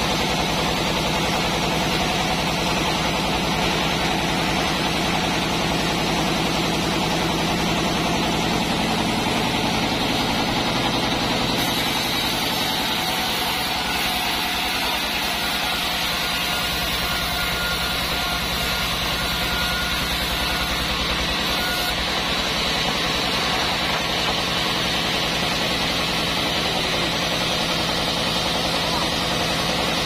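Band sawmill running steadily. For about ten seconds in the middle its blade saws along a plank of mindi wood.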